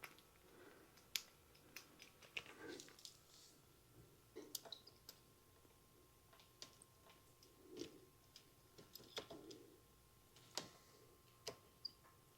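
Faint, scattered small clicks and taps of a bicycle chain tool and a BMX chain being handled and set up to push a chain pin out.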